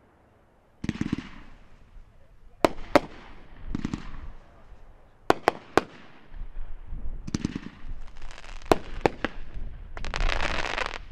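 Dominator Paparazzi 500-gram firework cake firing. Sharp bangs come singly and in quick pairs and triplets, between bursts of crackling. It builds to a dense crackling volley near the end.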